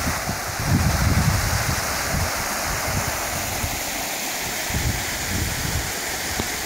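Hot-spring runoff water rushing and churning over rocks in a shallow thermal channel, a steady rushing noise with low rumbles now and then.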